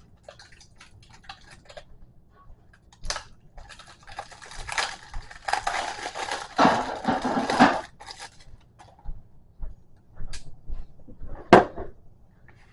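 Rustling and handling noise from about three and a half seconds in until about eight seconds, with a few sharp clicks, the loudest near the end, as bicycle parts are handled during assembly.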